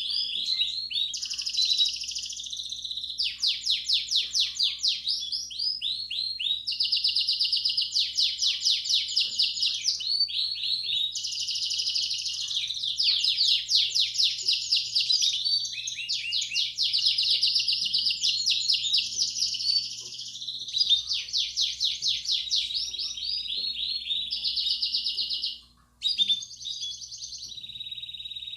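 Belgian canary singing its bell-like 'campainha' song, the kind played to young canaries to set them singing: one fast, high-pitched rolled trill after another, the phrase changing every second or two. The song stops for a moment near the end and then starts again, over a faint low hum.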